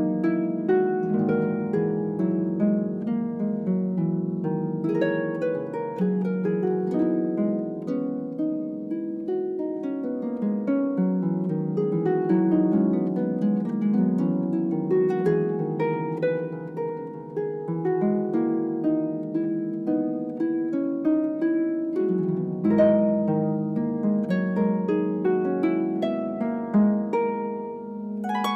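Solo harp playing: a dense stream of plucked notes that ring on over one another, mostly in the middle and lower range.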